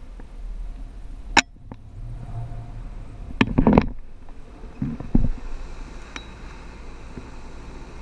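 Off-road 4x4 driving on a rough dirt track, heard from a camera mounted on its body: a steady low rumble with a few sharp knocks and clatters, once about a second and a half in, a burst of several around three and a half seconds, and once more about five seconds in.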